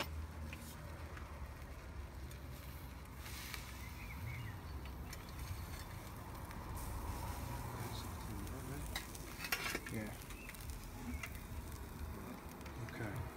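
Seared T-bone steak sizzling as it is lifted out of a wood-fired oven onto a metal baking tray, with a few sharp knocks from the tongs and tray.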